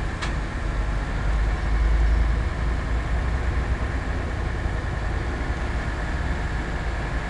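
Truck-mounted mobile crane diesel engines running steadily, a low rumble that swells a little about two seconds in, with a faint steady whine above it.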